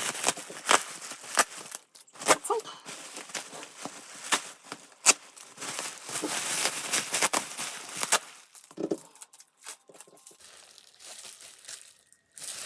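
Plastic bubble wrap being unwrapped by hand, crinkling with irregular sharp crackles.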